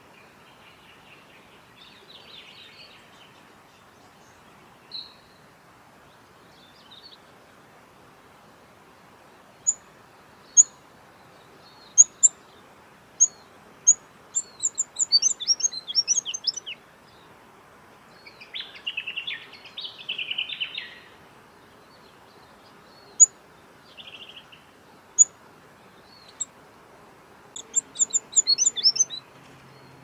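Rufous fantail calling: scattered single high, thin chips, and twice a quick run of squeaky notes falling in pitch, with a scratchy chattering burst between the runs.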